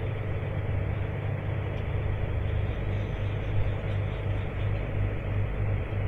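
John Deere tractor engine and grain-cart auger running steadily under load, heard inside the tractor cab while wheat is augered out into a grain trailer; a low, even hum with a slight pulse.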